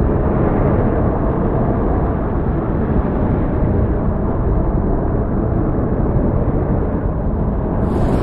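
Steady low rumble of an approaching thunderstorm. Near the end a brighter hiss joins it.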